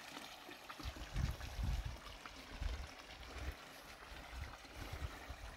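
Water trickling and splashing steadily from a garden pond's filter outflow. Irregular low rumbles come and go over it several times.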